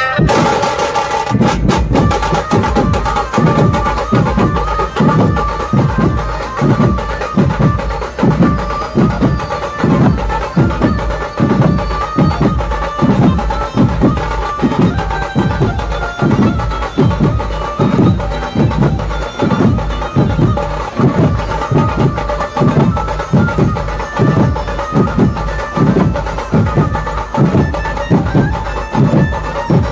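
A dhumal band playing through its loudspeakers: a steady, heavy drum beat of a little over one stroke a second under a sustained melody.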